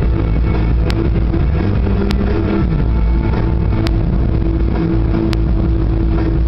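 Inside a moving car at highway speed: a steady low road and engine rumble, with music playing underneath. Four brief sharp clicks cut through.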